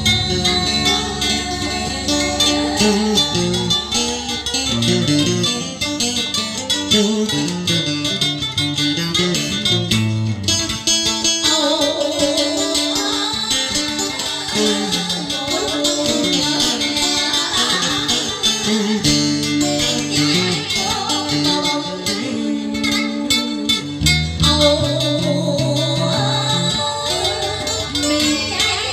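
Instrumental music: the song's backing track playing an interlude between sung verses.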